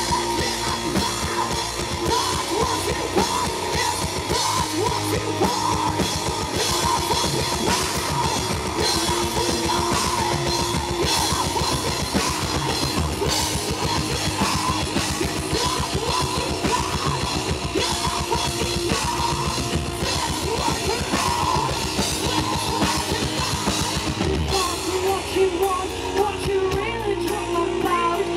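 Heavy metal band playing live: fast, dense drumming and distorted electric guitars, with a woman's voice singing into the microphone. Near the end the drumming thins out and held guitar notes carry on.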